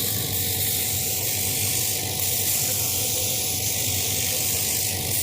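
CNC laser cutting machine running, a steady hiss with a low hum underneath.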